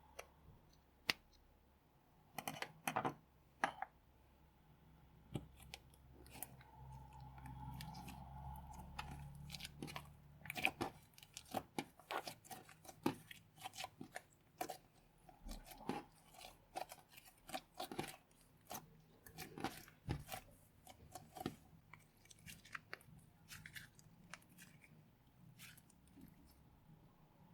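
Slime being pressed and worked by hand, giving irregular sharp clicks and crackly pops, several a second.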